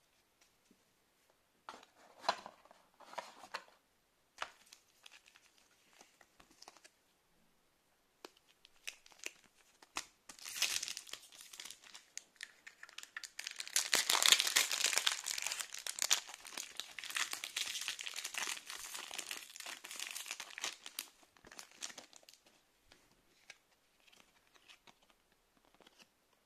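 Foil wrapper of a counterfeit Pokémon booster pack crinkling and tearing as it is ripped open. A few short crinkles come first, then a long stretch of dense crinkling in the middle, fading to faint light rustles near the end.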